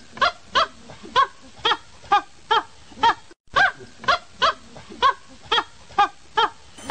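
An animal calling in a quick series of short calls, about two a second, each rising and falling in pitch, with a brief break about three and a half seconds in.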